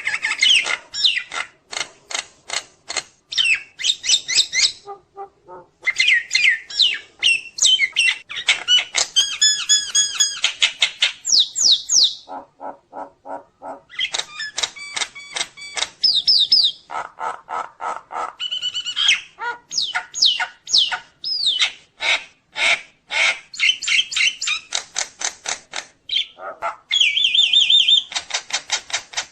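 Nias hill myna singing a varied, densely packed song: rapid trains of sharp notes, whistled rising and falling phrases and harsh squawks, with a run of lower pulsed notes near the middle.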